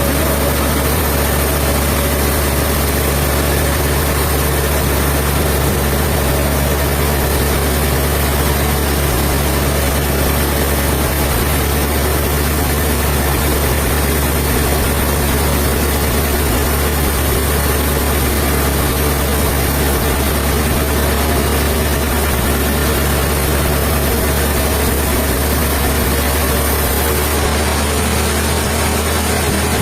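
Sawmill machinery running steadily, a constant low engine-like hum with no breaks.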